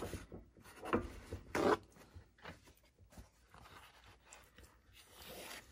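Paper towel rustling and rasping as a sheet is handled and spread flat on a cutting mat, with short sharp bursts at the start, about a second in and about a second and a half in.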